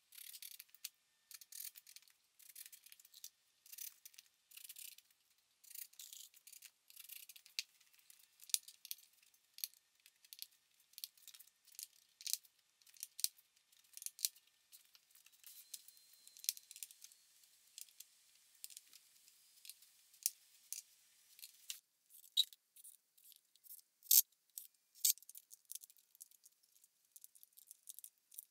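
Faint, irregular light clicks and ticks, scattered with short gaps, a few sharper ones near the end.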